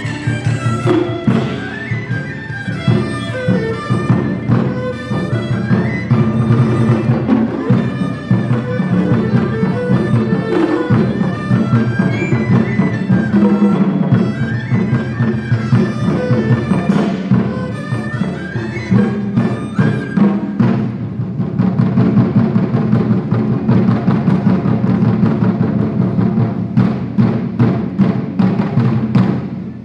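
Chinese traditional ensemble playing live: erhu, pipa and ruan carry the melody over dense playing on Chinese barrel drums. About two-thirds of the way in, the drumming turns faster and denser.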